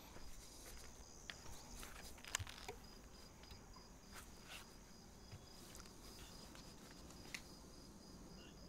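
Near silence with faint cricket chirping, a steady evenly pulsing high trill, and a few faint clicks.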